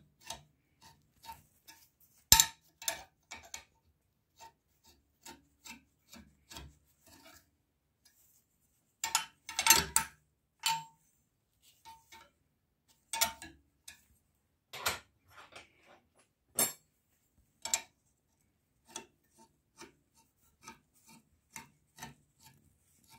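Twisted iron bar scraping and clinking against the steel pins and plate of a hand bending jig as it is bent into a C-scroll, in scattered knocks and scrapes with short pauses between them. The loudest clanks come about two seconds in and in a cluster around ten seconds.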